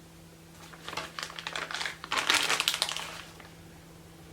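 Plastic piping bag being handled: a run of crinkling and clicking, densest and loudest about two seconds in, over a faint steady hum.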